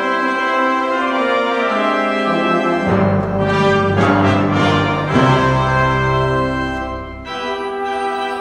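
Organ and brass ensemble music: organ holding sustained chords, with deep pedal bass notes coming in about three seconds in under a fuller, brighter swell that eases off near the end.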